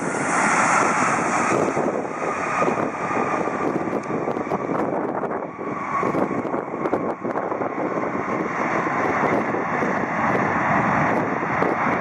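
Loud, steady jet engine noise from a Boeing 767-200ER's twin General Electric CF6-80A turbofans during its landing rollout just after touchdown, with a faint whine slowly falling in pitch.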